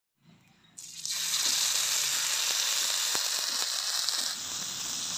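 Masala-marinated murrel fish pieces sizzling in hot oil on a flat frying pan. The sizzle starts suddenly about a second in as the fish goes into the oil, holds steady, and eases slightly near the end.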